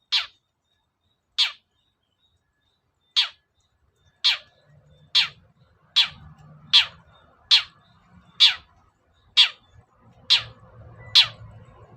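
Long-tailed shrike (cendet) giving a series of short, harsh calls, each a quick falling sweep. They come singly and a second or two apart at first, then settle into a steady run of about one call per second.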